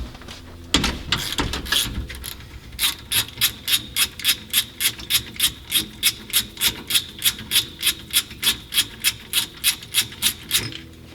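Rhythmic scraping strokes, about three a second, in an even run that starts about three seconds in after a few irregular scrapes.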